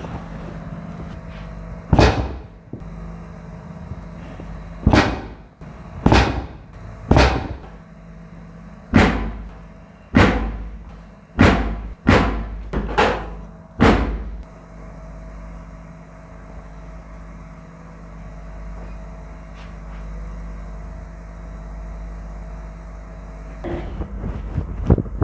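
A series of about ten sharp, loud impacts during a hands-on chiropractic treatment, each with a short ringing tail, spaced one to two seconds apart over about twelve seconds. A steady low hum runs underneath, and a cluster of smaller knocks comes near the end.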